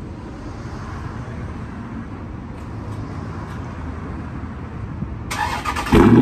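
Dodge Charger Scat Pack's 6.4-litre HEMI V8 idling with a steady low exhaust rumble. A sudden, louder and harsher burst comes in about five seconds in.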